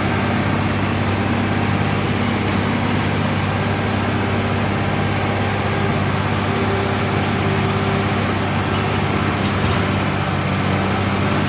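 Heavy-equipment diesel engine running steadily at a constant speed, a continuous low hum with no revving.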